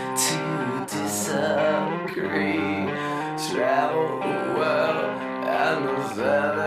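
Music: a slow, dark rock song with guitar and a sung melody line.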